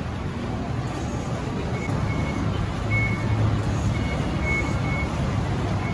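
Skytrain station fare gates giving short, high electronic beeps at irregular intervals as a crowd of passengers walks through. Under the beeps is a steady low rumble of the busy concourse.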